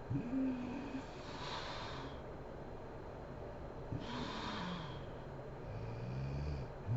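A sleeping woman snoring: short snorting snores at the start and about four seconds in, the second falling in pitch, each followed by a breathy rush of air, then a lower rumbling snore near the end.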